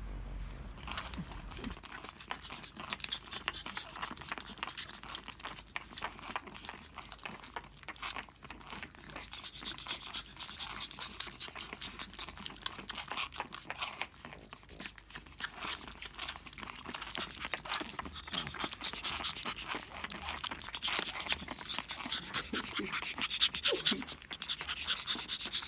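Pug puppies snuffling and smacking as they suckle and mouth: a dense, uneven run of small wet clicks with panting breaths.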